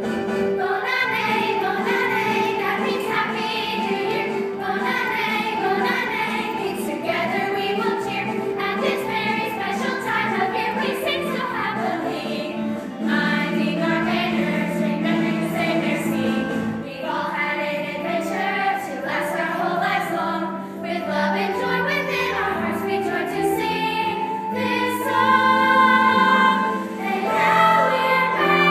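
A group of children singing a show tune together over instrumental accompaniment music, louder near the end.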